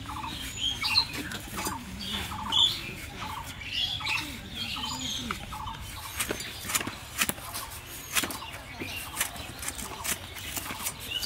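Green bananas being trimmed and cut from the bunch against a boti's curved iron blade, with sharp snaps and clicks that come thick and fast in the second half. Birds call repeatedly in the background during the first half.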